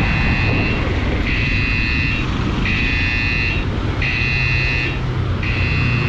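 Gojek driver app's new-order alert sounding on a smartphone: a high electronic tone repeating five times, each about a second long with short gaps. It signals an incoming GoFood order waiting to be accepted. A motorbike engine hums steadily underneath.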